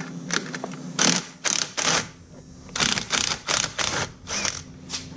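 Impact wrench with a 10 mm socket hammering in about eight short bursts, taking out the bolts of the brake caliper bracket.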